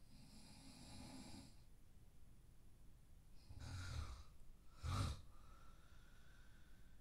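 A sleeping person breathing and snoring softly, faint overall: a long breath at the start, a rougher snoring breath about three and a half seconds in, and a short sharp breath near five seconds.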